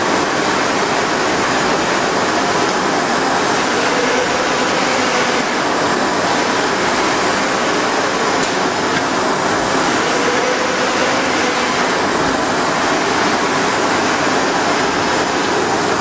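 A 2.5 m by 1.3 m flatbed UV printer running through a print job: a steady rushing machine noise that swells and eases every few seconds as the print carriage sweeps back and forth over the bed.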